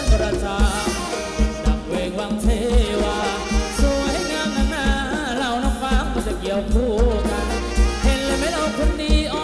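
Live band playing a Thai ramwong dance song: a singer's wavering melody over a steady, strong bass beat.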